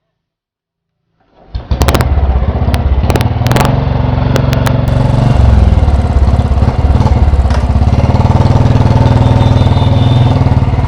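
Royal Enfield Bullet 350 single-cylinder engine running with a loud, even, rapid thump, cutting in about a second in after silence. A few sharp clicks come over it in the first few seconds.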